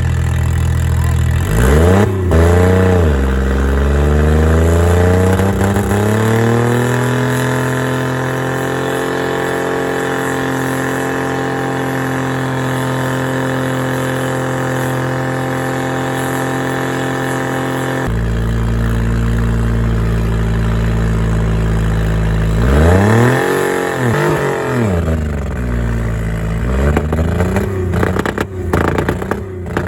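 A car engine with 200,000 miles on it is revved hard and held at high rpm for about ten seconds, being run flat out to try to send a rod through the block. About two-thirds in its pitch drops suddenly, and near the end it is revved up and down sharply several times.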